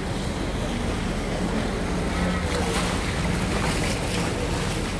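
Boat engines droning steadily with churning water and wash as a vaporetto water bus passes close alongside; wind buffets the microphone.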